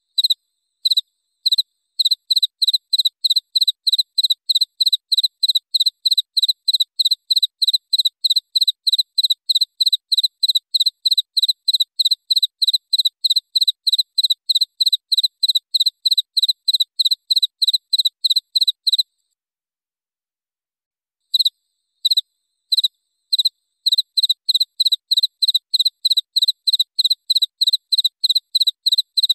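Cricket chirping: a steady run of short, clear, evenly spaced high chirps, about two or three a second. About two-thirds of the way in the chirping stops for roughly two seconds, then starts again with a few spaced-out chirps before the steady run resumes.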